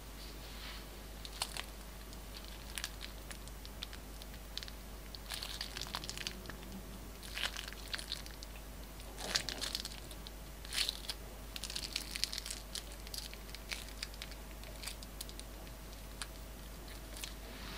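Plastic piping bag crinkling as it is squeezed, pressing out glossy glitter slime with soft sticky crackles. Irregular crinkles come in clusters, busiest in the middle.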